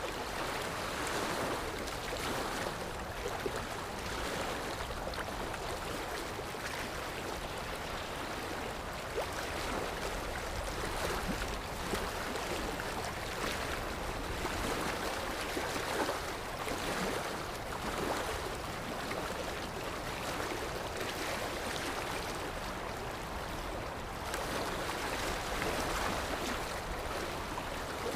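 Sea surf washing in a steady rush with gentle swells.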